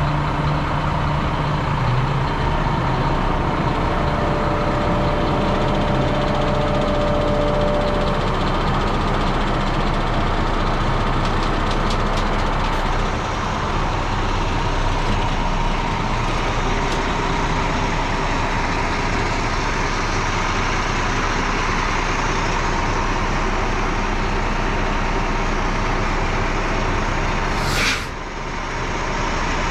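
The diesel engine of a 2008 International 7600 dump truck running steadily, with a faint steady whine over it. Near the end there is a brief sharp sound.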